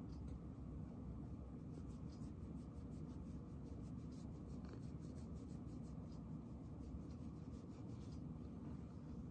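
Fingers scratching a cat's head fur: a soft, rhythmic rustle of about four or five strokes a second, over a low steady hum.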